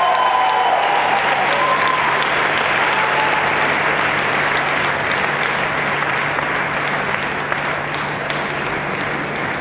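Audience applauding, with a few voices calling out in the first two seconds; the clapping slowly fades toward the end.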